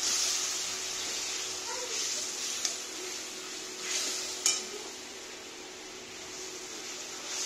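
Steel ladle stirring tamarind water and jaggery simmering in a wok, over a steady sizzling hiss, with two sharp clinks of the ladle on the pan, the louder one just past halfway. The tamarind is being boiled to cook off its raw taste.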